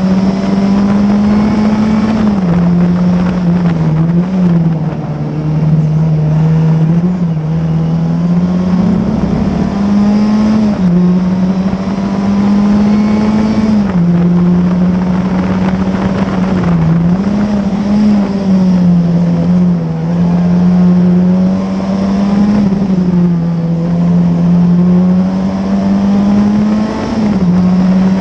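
Classic Formula Ford's 1600 cc Ford Kent four-cylinder engine at racing speed, heard from the cockpit. The engine note holds high, then drops and climbs again several times as the driver shifts and lifts for corners.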